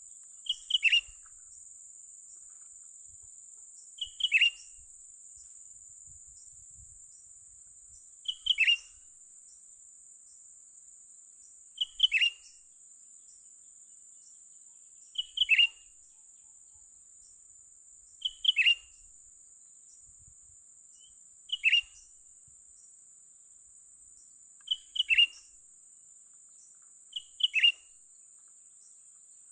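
Cucak ranting bird call: a short two-part note falling in pitch, repeated nine times at even intervals of about three seconds, over a steady high-pitched insect hiss.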